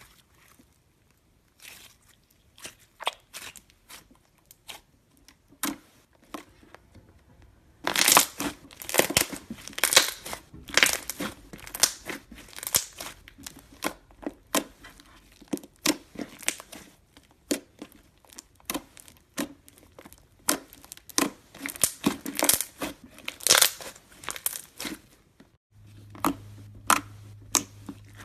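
Gold foil slime being kneaded and stretched by hand: a run of sticky clicks and crackling pops, sparse at first and much denser from about eight seconds in. Near the end it cuts to a low steady hum with a few soft clicks.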